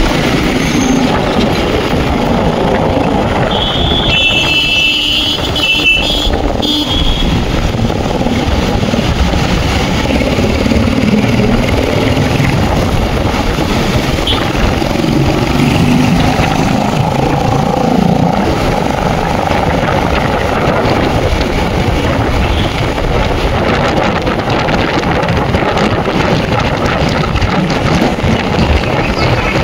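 A vehicle travelling on the road: a steady, loud rumble of engine and road noise. A high tone sounds for about three seconds, starting about four seconds in.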